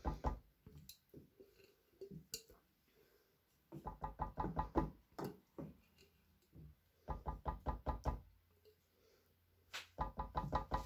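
A jar of white lasagna sauce being knocked with a spatula and shaken over a pan to get the last of the sauce out: quick runs of rapid knocks, each about a second long, coming four times with pauses between.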